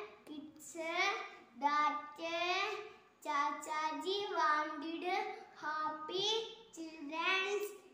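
A young boy singing in a high voice, in short phrases with held notes and brief pauses between them.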